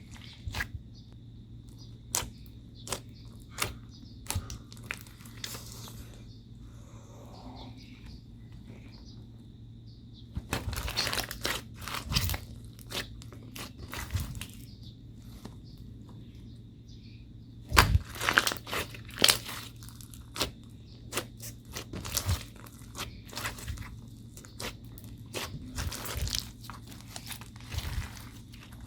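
Slime being squeezed and folded by hand, giving scattered sticky pops and clicks, with two stretches of dense crackling about ten seconds in and again near eighteen seconds.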